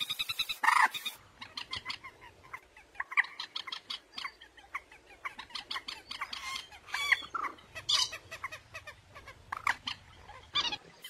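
Common moorhen calls: a rapid chatter in the first second, then a run of short, sharp clucking notes at uneven intervals, with a few louder calls scattered through.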